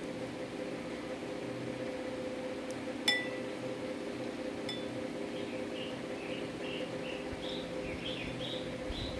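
A metal spoon clinks sharply once against a ceramic bowl about three seconds in, followed by a lighter tap. Under it runs a steady mechanical hum, and small birds chirp repeatedly in the second half.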